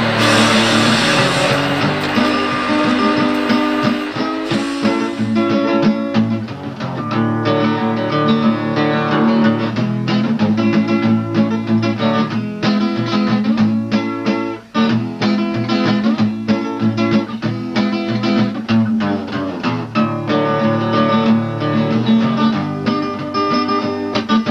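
Acoustic guitar music, plucked and strummed. For the first few seconds the noisy sound of a harvester processing head working a log runs under it; that stops about five seconds in and the guitar plays on alone.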